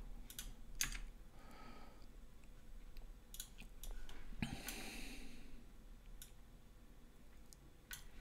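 Faint, scattered clicks of a computer mouse and keyboard as a 3D model is edited, a handful of sharp single clicks spread out, with a soft hiss about four and a half seconds in.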